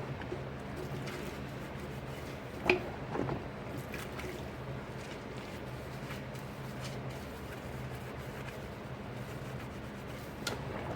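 Dishes being washed by hand: one sharp ringing clink of crockery about two and a half seconds in, then a few lighter clatters, with squishing and dripping of water over a steady low hum.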